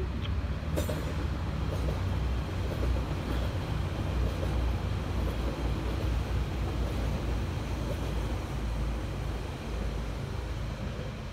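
Red electric regional multiple-unit train passing, a steady rumble of wheels on the track that eases slightly near the end.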